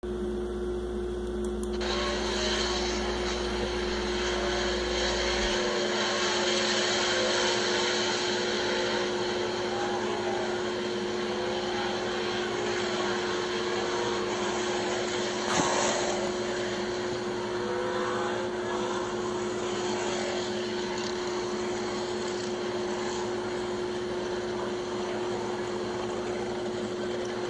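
Sprint car engines running on a dirt track, heard second-hand through a screen's speaker as a steady drone with wavering pitch, over a constant electrical hum. There is one sharp click about fifteen seconds in.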